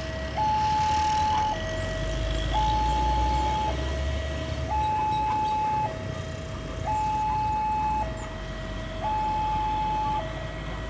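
Indonesian railway level-crossing warning alarm sounding as the crossing closes, a steady electronic two-tone signal alternating between a higher and a lower tone, each held about a second.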